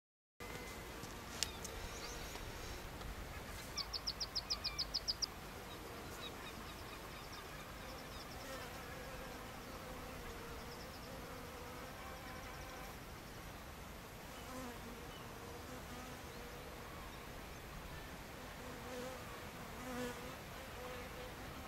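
Large leafcutter bees (Megachile willughbiella) buzzing in flight around their nest block, a hum that wavers in pitch and swells as a bee passes close. About four seconds in, a quick run of about ten sharp, high ticks.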